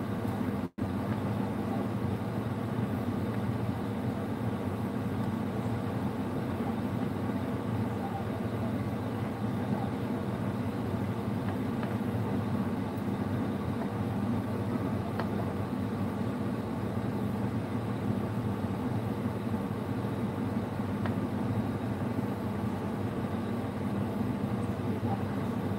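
Steady low mechanical hum that holds level throughout, cut off briefly less than a second in.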